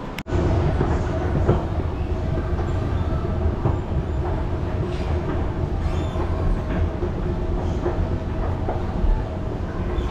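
Escalator running: a steady low mechanical rumble with a faint hum, heard from the moving step-band. It starts abruptly just after a momentary dropout at the very beginning.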